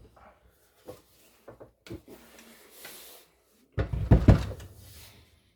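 Handling noise from the opened Binson Echorec unit being worked on a wooden workbench: a few light clicks and a brief rustle, then a cluster of heavy clunks and knocks about four seconds in.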